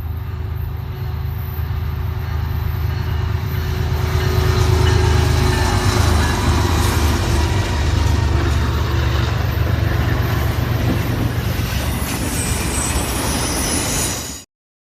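Freight train cars rolling past on the rails: a steady low rumble that grows louder over the first few seconds. Thin high wheel squeal comes in near the end, and the sound cuts off suddenly.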